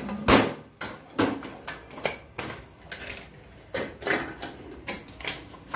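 Stainless-steel bowl of an electric yam pounder being pressed and twisted onto its motor base by hand: a string of irregular clicks and knocks with short scrapes as metal and plastic parts seat together. The motor is not running.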